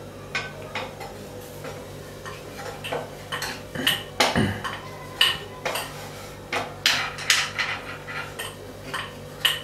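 Scattered light metallic clinks and taps against a steel rolling board as thalipeeth dough is shaped and pressed flat by hand, with the wooden rolling pin and a metal bracelet knocking on the board.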